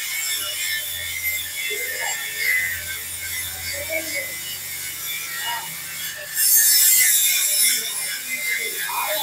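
Metal lathe running with a steady low hum while steel rod stock clanks and rattles during spring coiling. About six seconds in, a louder hissing, scraping burst lasts a second or so.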